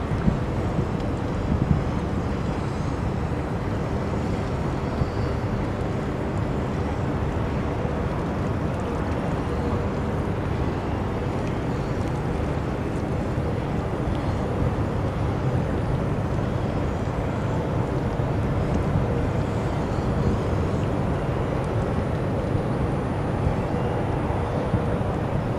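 Steady low rumble of distant industrial machinery, with a faint continuous hum running through it.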